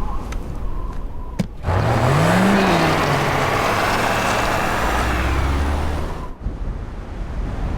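A car passes or pulls away: an engine note rises and then falls under a rush of road noise. It starts abruptly about two seconds in and cuts off shortly before the end.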